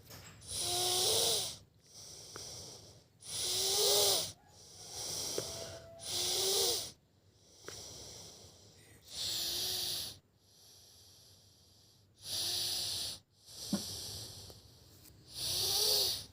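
A sleeping child snoring in slow, regular breaths, about seven loud snores two to three seconds apart, most with a thin whistling wheeze running through them.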